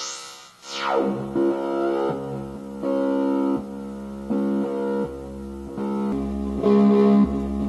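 Eurorack modular synthesizer patch: a fast falling pitch sweep about half a second in, then a sequence of held synth notes stepping between pitches roughly every half second to a second.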